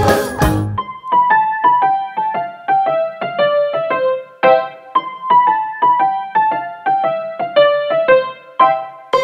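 Background music. A full arrangement with drums and bass stops about a second in, leaving a light melody of short, quickly fading notes that step downward in repeated runs. The full arrangement comes back near the end.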